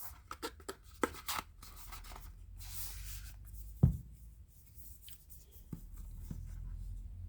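Hands handling small objects at a table: a run of small clicks and taps in the first second and a half, a brief rustle near three seconds, and a single dull thump about four seconds in.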